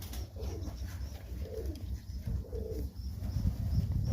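Domestic pigeons (Serbian highflyers) cooing, a few low coos about a second apart over a steady low rumble.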